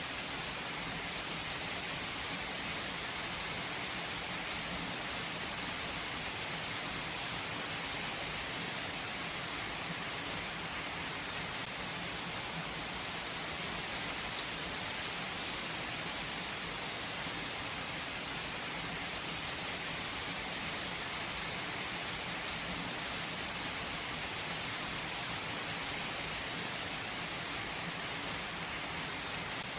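Steady rain falling, a constant even hiss with a few faint drop ticks.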